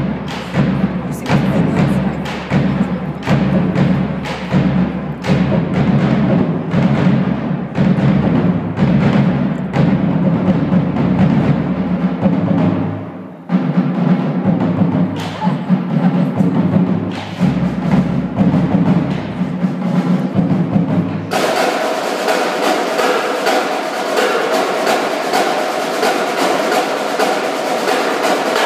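High school drumline of snare, tenor and bass drums playing a fast, driving cadence, loud and dense. About three-quarters of the way through, the deep bass drums drop out abruptly and higher, brighter playing takes over.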